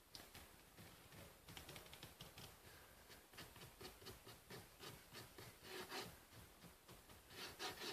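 Faint rubbing and light repeated taps of paint being dabbed and wiped onto a cardboard surface.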